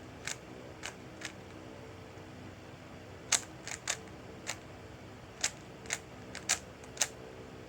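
Plastic 3x3 Rubik's cube being turned by hand: about a dozen sharp, irregular clicks as its layers snap round, several coming in quick pairs in the second half.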